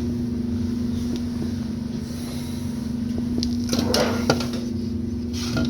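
Steady mechanical hum of refrigeration equipment running, with a few brief knocks and rustles of handling about four seconds in.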